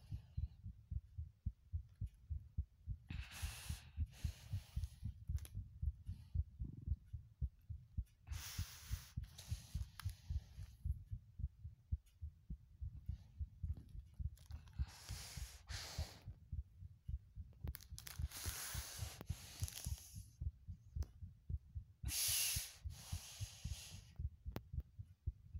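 Heartbeat: a steady, even rhythm of low thumps, with a rushing noise breaking in every few seconds.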